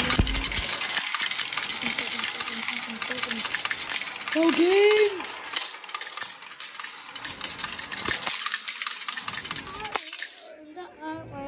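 Arcade token-changer machine paying out about forty tokens into its metal cup: a rapid, continuous clatter of coins falling on coins that stops about ten seconds in.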